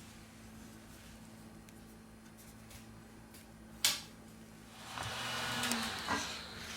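Faint handling sounds of plastic opening tools working the iPad screen's adhesive: one sharp click about four seconds in, then a scraping rasp for about two seconds near the end, over a low steady hum.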